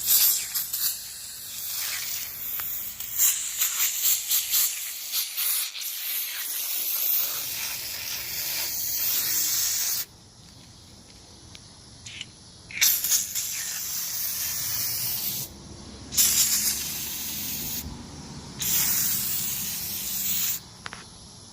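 Aerosol can of coil cleaner spraying onto an air conditioner's condenser coil: a hiss held for about ten seconds, then after a pause three shorter bursts of spray with short gaps between.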